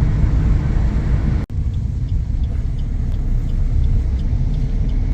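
Steady low rumble of a moving road vehicle, cut off for an instant about a second and a half in.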